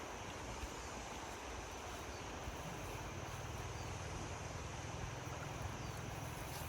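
Small engine running steadily over a steady hiss; its low hum grows stronger about three seconds in.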